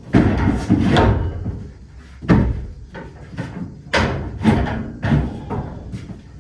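Wooden stall partition being worked back into its frame in the barn: a run of about eight irregularly spaced knocks and bangs of wood against wood.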